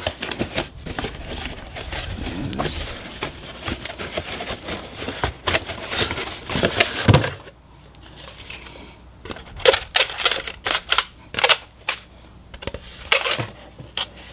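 Cardboard box and plastic packaging being handled and opened: a long run of rustling with many sharp clicks and crackles. There is one heavier knock about seven seconds in.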